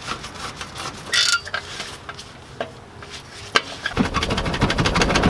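Ratchet clicking in short scattered runs on the clamp bolt of a stock Porsche Cayman exhaust tip. About four seconds in, a dense run of fast metallic clicks and rattles starts as the loosened tip is twisted and pulled on the exhaust pipe.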